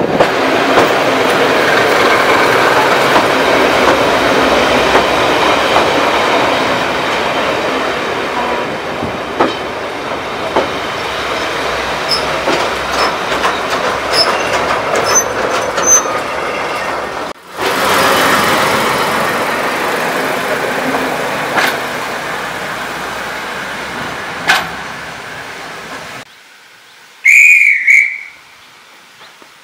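Heritage railway carriage running along the track: a steady rumble with scattered wheel clicks and faint high squeals, broken off abruptly twice. Near the end, in the quiet of the platform, one short, shrill, warbling guard's whistle blast, the signal that the train may leave.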